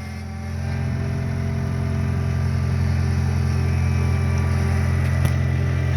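Skid steer engine running steadily, growing louder over the first second and then holding an even pitch.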